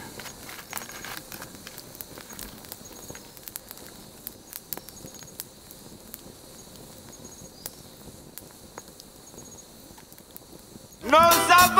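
Small wood fire crackling, with irregular sharp pops and ticks over a low hiss, and faint insect chirps repeating high in the background. Music starts loudly near the end.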